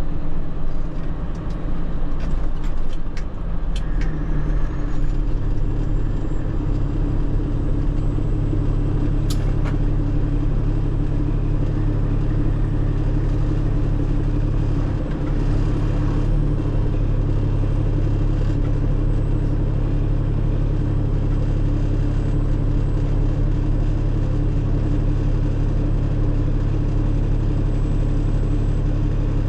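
Tractor-trailer tanker's diesel engine running steadily, heard from inside the cab as a low drone that settles into an even pitch after a few seconds. A few light clicks come in the first few seconds, and one sharp click about nine seconds in.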